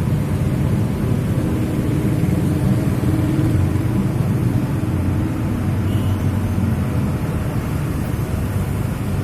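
Traffic jam on a busy street: many idling and creeping car and motorcycle engines blending into a steady low rumble.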